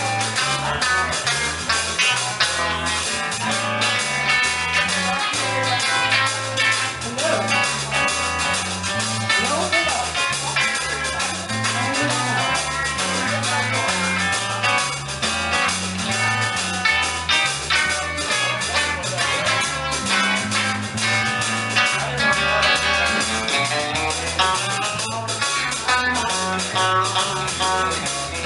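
Live band music with guitar playing over a steady bass line and drums.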